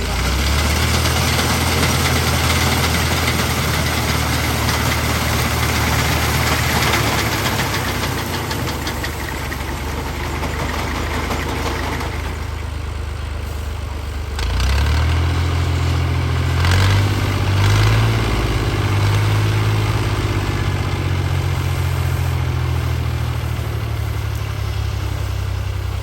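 Fiat 480 tractor's diesel engine running steadily while it works a wheat reaper, its note shifting and growing louder about halfway through.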